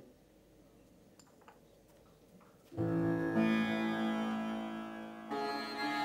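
Near silence with a few faint clicks, then about three seconds in background music comes in suddenly: a plucked string instrument playing long ringing notes that change pitch a couple of times.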